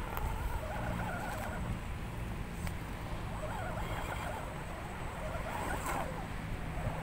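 RC scale crawler's Axial 27T brushed electric motor and geared drivetrain whirring, its pitch wavering up and down with the throttle as the truck crawls up rock. Two sharp clicks, about a third of the way in and near the end.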